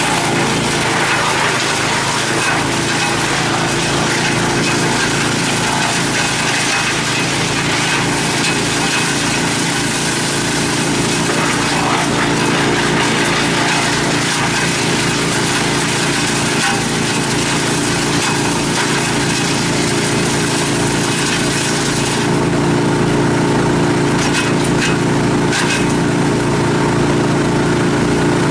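Bandit 65XP wood chipper with a 35 hp twin-cylinder Vanguard gas engine running steadily while brush is fed through and chipped, a loud grinding hiss over the engine. About 22 seconds in the chipping eases off, leaving the engine running with a few short cracks.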